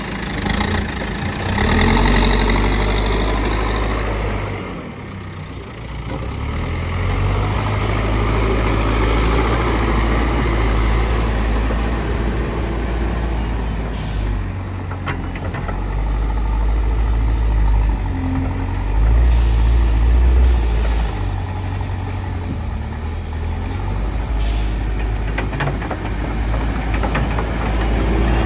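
Backhoe loader's diesel engine running as the machine works, its speed rising and falling, with a short hiss about two seconds in.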